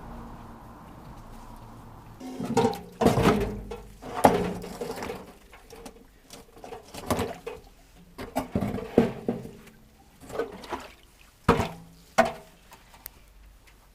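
Irregular knocks and clanks with short ringing after them, starting about two seconds in, as parts of a scrap washing machine are handled and fitted together.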